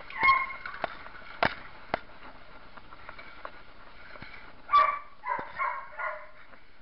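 A few sharp knocks of a handled metal pole in the first two seconds, then a dog barking in a quick run of short barks about two-thirds of the way in.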